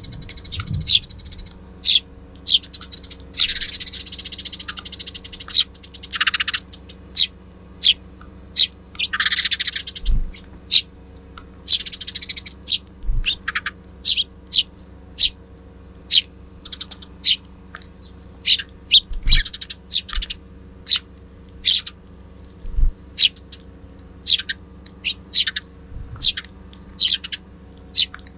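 Sparrows chirping: a steady run of short, high chirps about one or two a second, with a few longer harsh, buzzy stretches in the first ten seconds. Occasional soft low thumps sound underneath.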